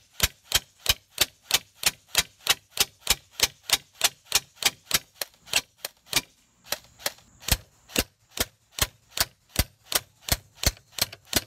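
Airsoft rifle firing single shots in quick succession, sharp clicks at about three or four a second, with a brief pause a little past halfway before the shots resume.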